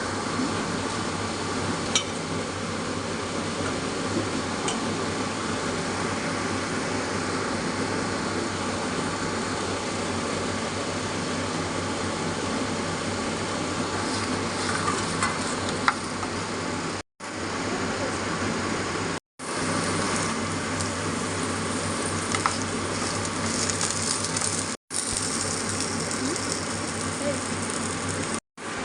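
Food sizzling in hot oil in a pan while it is stirred, with a few sharp taps of a spoon against the pan. The steady sizzle breaks off abruptly several times.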